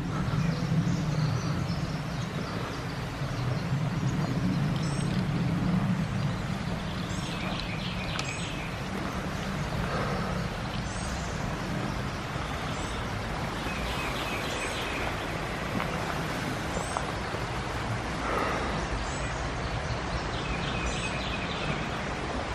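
Steady rush of a flooded creek running high and fast, with small birds chirping every second or two over it.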